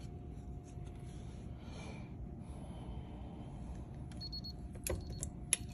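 Low, steady room tone. About four seconds in there is a short, faint electronic beep, then a few sharp clicks as a plastic key card is held against a hotel door's electronic card lock. The door is already unlocked, so the lock does not release.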